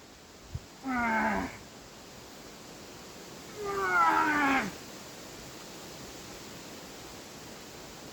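A short knock, then two drawn-out yells of effort from a climber pushing through hard boulder moves, each falling in pitch; the second, about three seconds later, is louder and higher.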